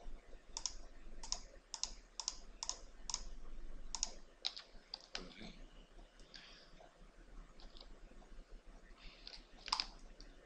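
Computer mouse clicking: short sharp clicks about two a second for the first four seconds, then sparser, with one louder click near the end.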